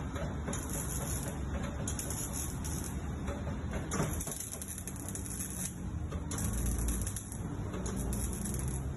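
Electric arc welding on a car's exhaust pipe: the arc crackles in short bursts of one to two seconds, starting and stopping several times, over a steady low rumble.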